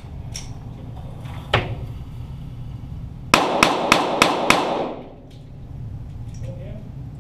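Single shot from a .22 rimfire Walther GSP target pistol, then about two seconds later a quick string of five shots, roughly three a second, heard from downrange beside the targets, with the reports echoing briefly after the string.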